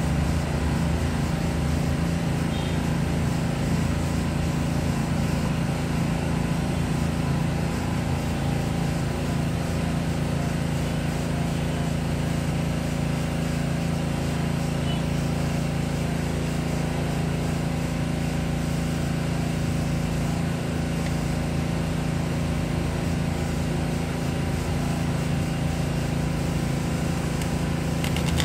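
A steady, low mechanical hum at a constant pitch, unchanging throughout.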